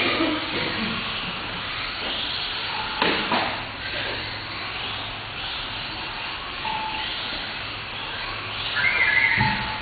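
Small 1/18-scale electric RC cars racing: a steady hiss of motors and tyres with short higher whines that come and go, loudest near the end, and a knock about three seconds in.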